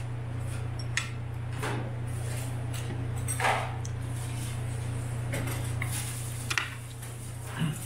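Metal chopsticks tapping and scraping against a dish of rice and roast meat: a handful of scattered clicks and one longer scrape about three and a half seconds in, over a steady low hum.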